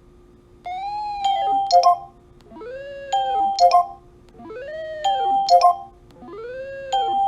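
Electronic tones from a biofeedback device turning energy readings into sound. They repeat about every two seconds, starting under a second in: each phrase glides up and back down in pitch, then gives a few short steady beeps with clicks, over a faint steady hum.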